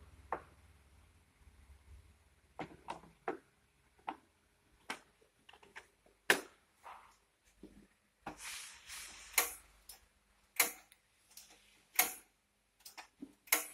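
Irregular clicks and clinks of tableware being handled on a table: metal utensils, plastic food trays and dishes knocking together, some strikes ringing briefly.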